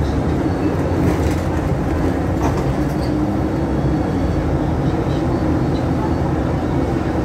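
City bus engine and road noise heard from inside the cabin as the bus drives: a steady low rumble.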